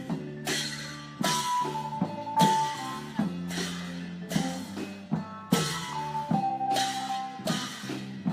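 Isan klong yao long-drum ensemble playing: the drums strike a strong beat about once a second, with cymbal crashes and a held melody line over them.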